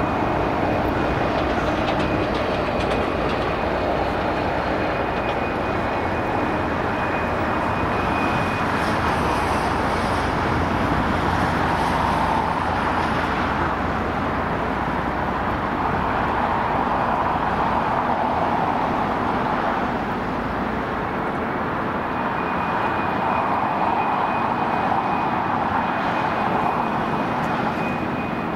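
Jet engines of taxiing airliners, a steady roar. A faint high whine sounds near the start and comes back about two-thirds of the way through.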